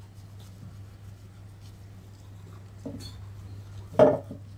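Manual toothbrush scrubbing teeth, a faint scratchy brushing over a low steady hum, broken about four seconds in by a brief louder throat or mouth sound.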